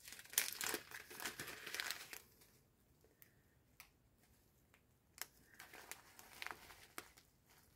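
Small plastic bag of diamond-painting drills crinkling as it is opened by hand, for about the first two seconds, followed by a few faint scattered rustles and clicks.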